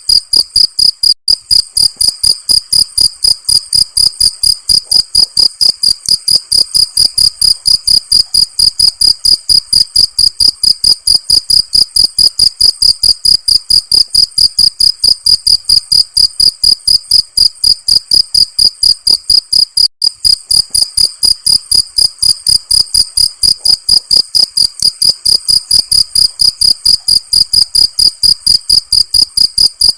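Crickets chirping in a fast, perfectly even rhythm of about three to four shrill chirps a second.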